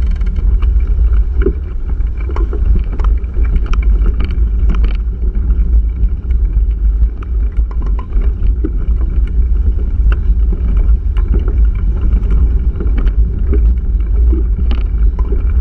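Wind buffeting and rumbling on the microphone of a handlebar-mounted camera on a mountain bike riding a dirt trail, with frequent short clicks and knocks from the bike and mount rattling over the rough ground.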